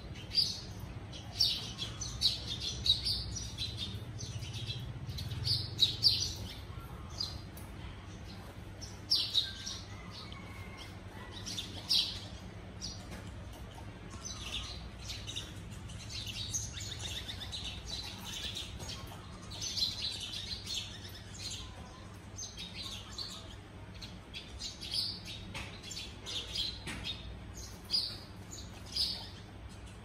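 Several sparrows chirping: many short, high chirps coming in irregular clusters, over a low steady hum.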